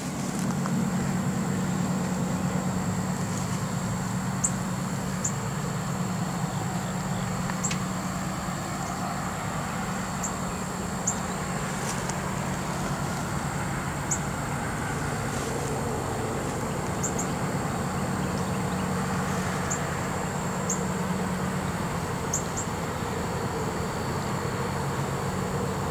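A steady low engine hum with no change in pitch, under a faint, constant high trill and a few short high chirps.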